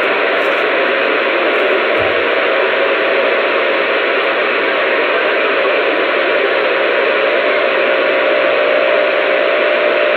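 CB radio receiver hissing with steady band static through its speaker, on an open channel with no voice coming through. A faint steady tone sits under the hiss in the second half, and there is a brief low thump about two seconds in.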